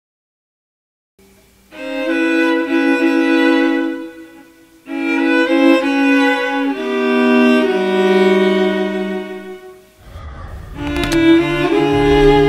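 Background music of bowed strings playing slow, long held notes in phrases that swell and fade, beginning after about a second of silence. Near the end a low rumble comes in beneath a deep held note.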